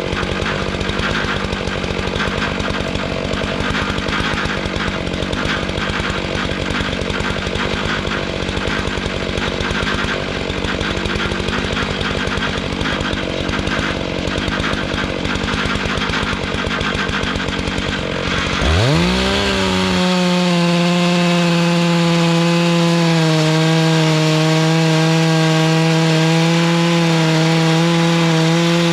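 Stihl MS 661 91 cc two-stroke chainsaw running in a chainsaw mill, first with a rough, uneven low-speed note. A little over halfway through it is throttled up, rising sharply in pitch into a steady full-throttle note as the mill begins cutting through a beech log.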